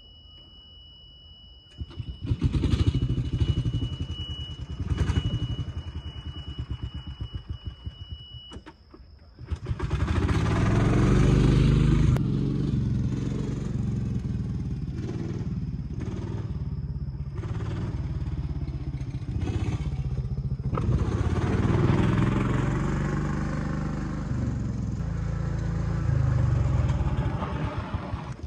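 Engine of a golf-course utility cart, uneven and pulsing at first, then running steadily and louder from about ten seconds in as the cart drives.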